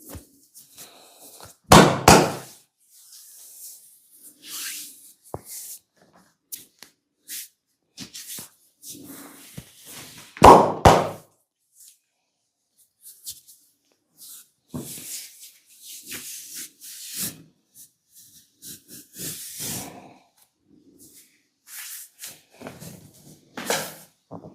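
Hands working on a person's body during a massage: scattered rubbing and patting of skin, with two loud thuds, one about two seconds in and one about ten seconds in.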